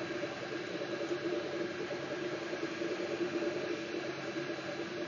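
MakerBot 3D printer at work, its stepper motors humming in wavering tones as the print head lays down a plastic nut, over the steady hiss of its cooling fan.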